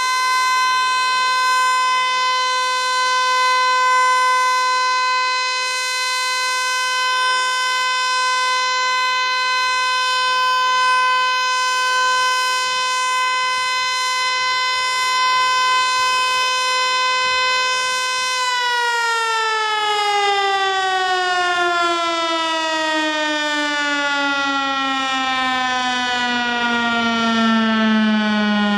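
Federal Signal Eclipse 8 electronic outdoor warning siren sounding a steady, loud alert tone. About two-thirds of the way through, the pitch begins sliding slowly and smoothly down.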